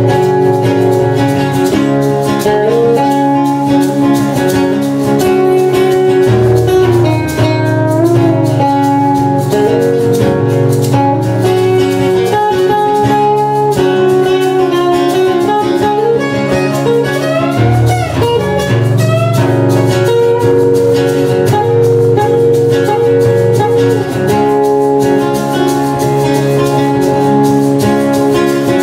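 Two acoustic guitars playing a song together.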